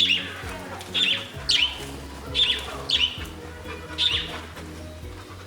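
Budgerigars chirping, short sharp calls that come every half second to a second, over background music.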